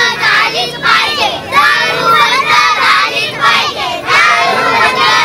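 A crowd of children shouting slogans in unison, one chanted phrase about every second.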